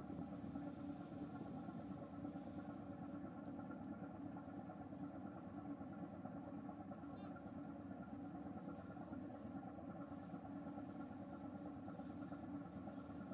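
Car ferry's engines running steadily under way: a constant drone with several held tones over a low rumble.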